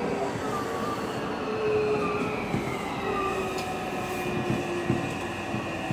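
Nankai 1000 series electric train braking as it draws into a station, heard from the front cab: a steady electric whine from the traction drive that dips slightly in pitch and then holds, with wavering wheel or brake squeal and a few sharp clicks.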